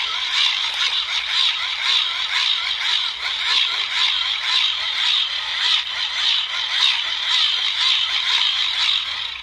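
K-TOR Pocket Socket hand-crank generator being cranked under load while charging a smartphone: its gearing gives a steady, high buzzing whir, pulsing slightly with the turning handle, which stops abruptly at the very end.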